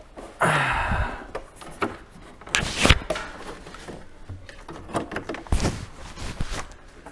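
Handling noise from a small flat-screen TV being lifted off its stand base and carried: a stretch of rubbing and scraping, then a few dull knocks, the loudest about three seconds in.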